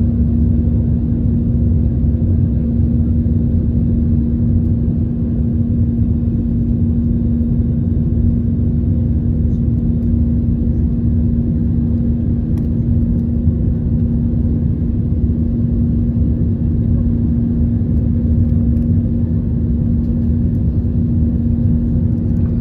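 Airbus A320 cabin noise heard from a window seat during the climb: a steady, loud low roar of engines and airflow with a constant hum running through it.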